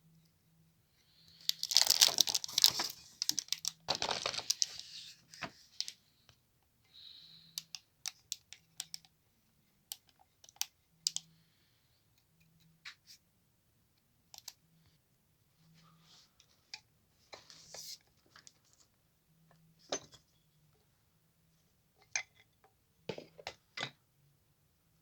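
Handling noises: a burst of rustling and scraping in the first few seconds, then scattered sharp clicks and light knocks of small hard objects.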